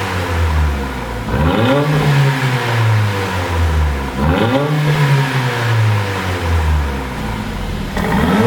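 Mercedes-AMG CLA45's turbocharged 2.0-litre four-cylinder, running a pop-and-crackle exhaust tune, revved repeatedly: the pitch climbs, holds and sinks back in swells about three seconds apart.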